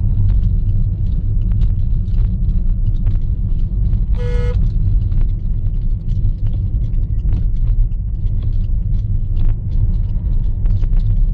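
A moving car's engine and road noise heard from inside the cab: a steady low rumble with frequent small knocks and rattles. One short horn toot sounds about four seconds in.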